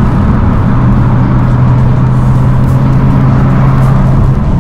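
BMW M2 F87's N55 turbocharged straight-six and aftermarket exhaust running at a steady engine speed: a constant low drone sets in about a second in and holds until just before the end.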